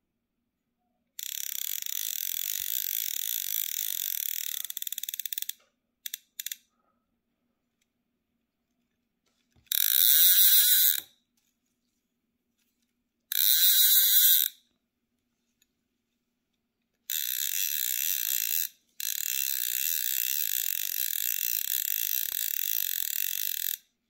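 Aluminium click-and-pawl fly reel (VR Trutta Perfetta, 2¾") with its spool spinning, the pawl rattling over the gear in a fast, high-pitched buzz. It comes in several runs: a long one, two brief ones, two louder and shorter ones near the middle, then a long run near the end.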